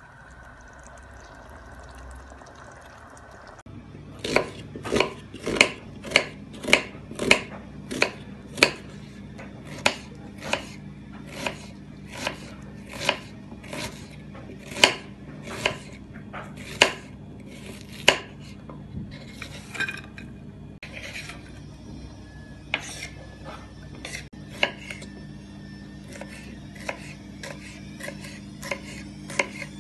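Kitchen knife chopping on a bamboo cutting board: sharp, even knocks about twice a second from about four seconds in, becoming sparser and lighter in the second half as onion and then red pepper are cut. A faint steady hum lies underneath.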